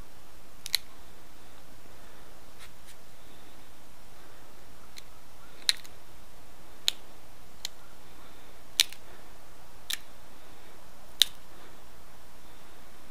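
Pressure flaking of an Edwards chert arrowhead: sharp little clicks as flakes snap off the edge under a pointed pressure flaker, about ten of them at irregular intervals, the loudest near the end.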